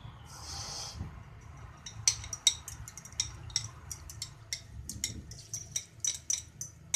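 A metal fork clinking against a small ceramic bowl in quick, irregular taps as the contents are scraped and stirred, with a short hiss about half a second in.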